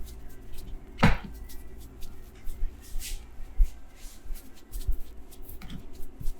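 Hands massaging a person close to the microphone: skin rubbing and a run of quick taps and pats, with one louder hit about a second in.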